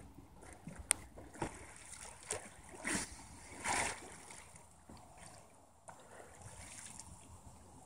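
Water splashing and sloshing around a kayak as a paddler settles in and works a paddle, with a few sharp knocks in the first two seconds and two louder splashes near the middle.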